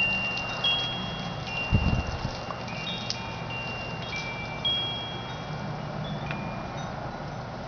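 Wind chimes ringing: several clear, high, overlapping tones struck at irregular moments, each ringing about a second, with a low thump about two seconds in.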